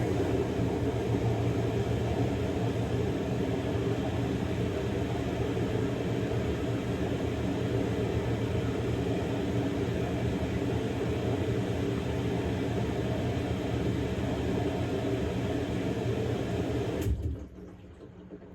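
Samsung Grande washing machine running in its quick-wash course: a steady mechanical hum that starts abruptly and stops about 17 seconds in.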